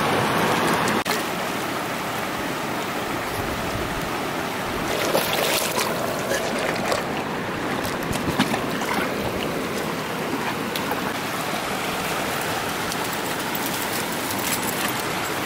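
Shallow mountain creek rushing over rocks: a steady water noise, with a few short louder sounds partway through.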